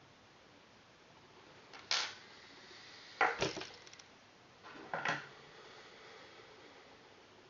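Three short clacks of hard parts knocking together, about a second and a half apart; the second is a quick rattle of several clicks.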